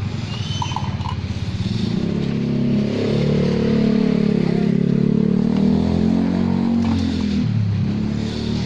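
Car engine running, with a pulsing beat at first. Its pitch climbs after about two seconds, holds, then drops near the end.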